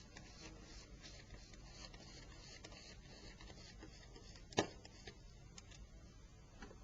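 Faint small clicks and ticks of a Torx Plus screwdriver working the screws out of a Nokia 6220's chassis, with one sharper click about four and a half seconds in.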